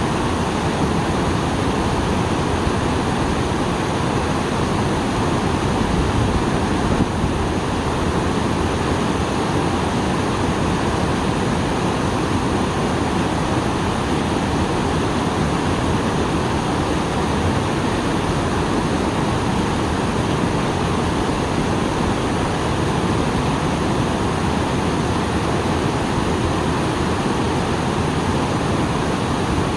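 Small waterfall pouring steadily, a dense, even rush of falling water with its flow swollen after rain.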